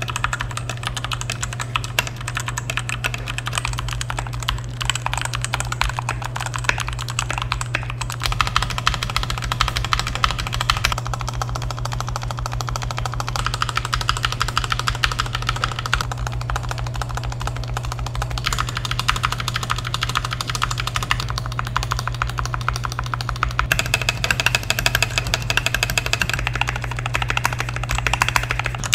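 Fast continuous typing on a Fantech MaxFit mechanical keyboard with Outemu Red linear switches, dampened with Poron case foam, plate foam, switch pads and spacebar foam to give a thockier sound. The keystrokes come densely throughout, with the rhythm changing a few times.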